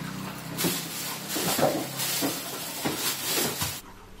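Rustling and handling noise with a few light knocks as bags and boxes are searched through, cutting off abruptly near the end.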